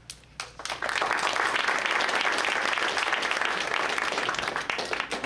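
Audience applauding: a few scattered claps at first, building within a second into steady applause that stops near the end.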